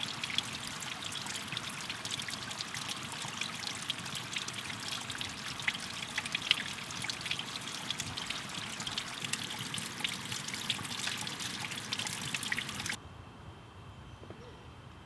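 Thin waterfall trickling and splashing onto rock, a steady patter of drips and splashes. It cuts off abruptly near the end, leaving a much quieter background with a faint steady high tone.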